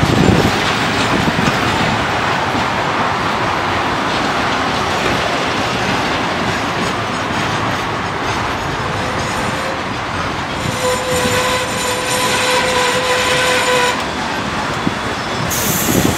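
Passenger train carriages rolling slowly past at close range, wheels clicking over the rail joints. About eleven seconds in, a steady tone sounds for about three seconds and then stops.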